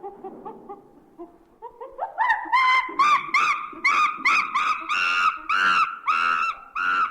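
Monkey calling: soft, low repeated hoots that climb in pitch about two seconds in and build into loud, screeching calls repeated about three times a second.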